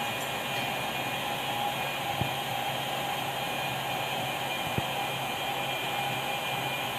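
A CNC router running steadily: a hiss with a constant hum and whine. Two short ticks come about two and a half seconds apart.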